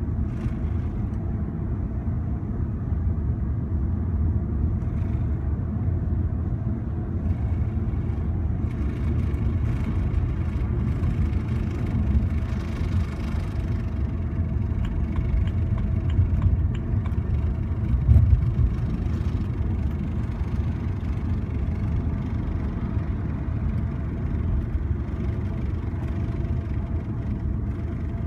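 2007 BMW 328i being driven: steady engine and road rumble with a ticking noise from the driver's side.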